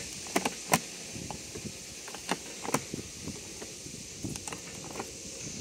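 A BMW 7-Series driver's door lock worked by hand with the mechanical emergency key blade: a handful of sharp metal clicks as the key goes in and turns. The loudest click comes about three-quarters of a second in, and two more follow a little over two seconds in, over a steady hiss.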